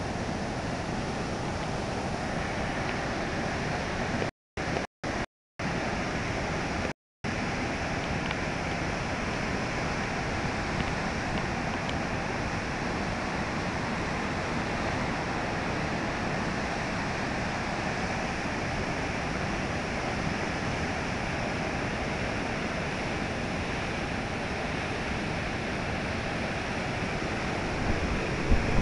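Waterfall rushing, a steady even roar of falling water. The sound cuts out to silence a few times for a split second, about four to seven seconds in.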